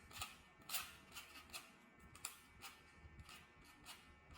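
Plastic clicks of a 4x4 Rubik's cube's layers being turned by hand: about ten sharp, irregular clicks.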